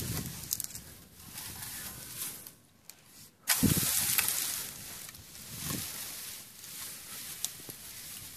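Wind buffeting the microphone in gusts over a steady hiss; it drops away briefly about two and a half seconds in and comes back sharply a second later.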